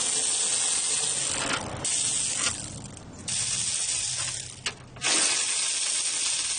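Cordless electric ratchet running in several spells of a second or two with short breaks, its motor and gears whirring as it spins out a 10 mm bolt.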